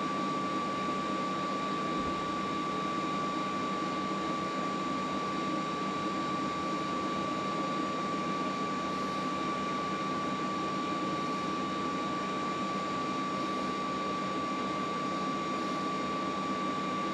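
Steady background drone with a constant high-pitched whine, unchanging throughout.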